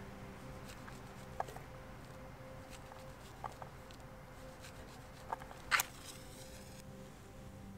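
A few small clicks and taps of hands handling food and cookware, then a match struck on its box, flaring with a short hiss that fades within about a second, near the end.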